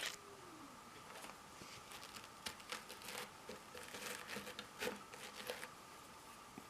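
Thin steel lock picks being handled and set down: one sharp click at the start, then scattered small clicks and light rustling.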